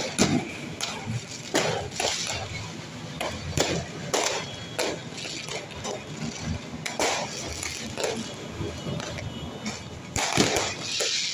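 Fireworks going off overhead: a run of irregular bangs and crackles. A dense, louder cluster of bangs comes near the end.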